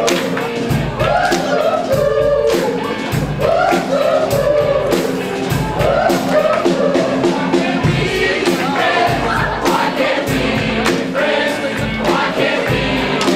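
Upbeat music with a group of voices singing over a steady beat.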